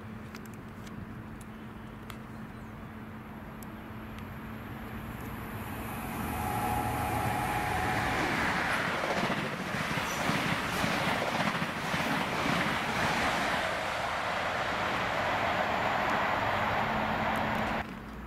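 High Speed Train with Class 43 diesel power cars passing through the station without stopping. It grows louder from about a third of the way in, a loud rush and clatter of the coaches and wheels going by, then cuts off suddenly near the end.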